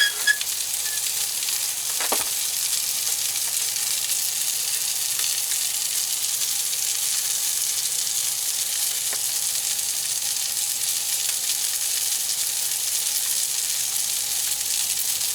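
Striped bass fillets sizzling steadily in a hot frying pan, a bright crackling hiss of skin crisping in oil over high heat. One short click about two seconds in.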